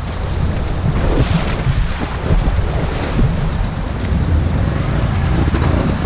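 ATV wading through a shallow river crossing: engine running under steady splashing and rushing water, with wind rumbling on the microphone.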